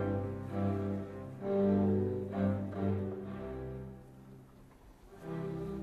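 Orchestra playing a classical passage in rehearsal, bowed strings to the fore with cellos and basses prominent. The sound thins almost to nothing about four seconds in, then the strings come back in a second later.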